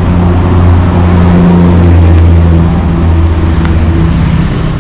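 A motor vehicle's engine running close by: a steady low hum that eases off a little after about three seconds.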